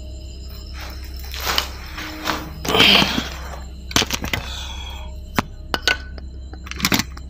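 Footsteps crunching over a rubble-strewn floor, with a few scuffs in the first half and then several separate sharp cracks and clicks. A steady low hum runs underneath.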